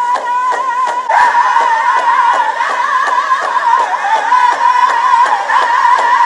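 Music with a high voice singing a long wavering note with fast vibrato, held almost without a break, over a steady beat.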